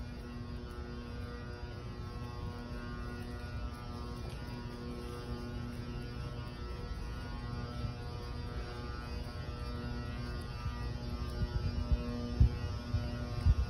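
Steady building hum in a large empty hall: several faint steady tones over a low rumble. A couple of low thumps come near the end.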